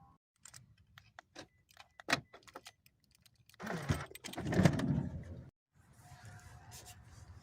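Light clicks and small rattles of objects being handled, then a louder rustle and clatter starting about three and a half seconds in.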